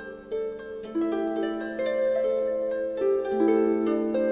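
Background music: a slow melody of plucked-string notes over a held bass note.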